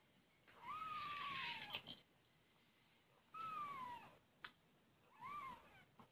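A cat mewing three times, each call a short, high rise that falls away in pitch.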